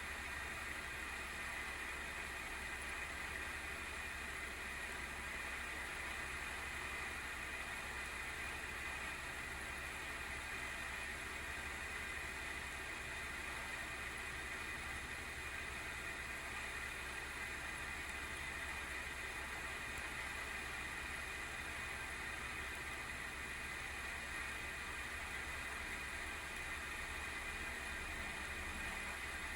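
Graphics-card cooling fan (FDC10U12D9-C) on an ASUS RTX 3060 Phoenix, spinning under benchmark load with a steady abnormal whirring noise that is strongest in a high band, over a low hum. The uploader puts the noise down to a failing fan: either a wobbling shaft or its bearing oil run dry.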